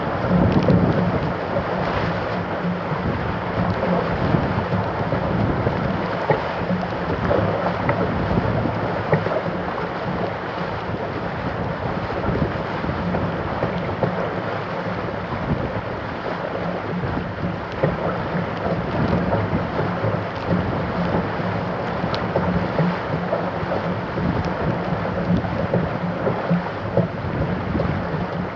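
Wind buffeting the microphone over water rushing and splashing along the hulls of a Weta trimaran under sail, a steady noise with small irregular splashes.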